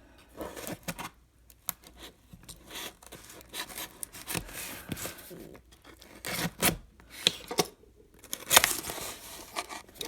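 A cardboard model box being opened and its packaging handled by hand: irregular tearing, rubbing and scraping of cardboard and paper, with short sharp clicks and a few louder knocks in the second half.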